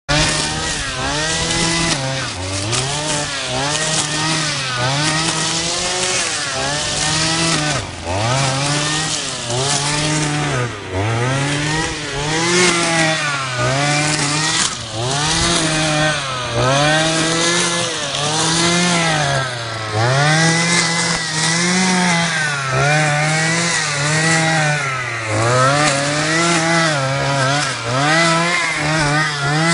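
Petrol brush cutter running, its engine revving up and down over and over, about once every second or so, as it is swung through tall grass and weeds.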